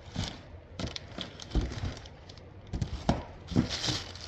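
Irregular handling noise: a scatter of short knocks, clicks and rustles as objects are moved and touched by hand.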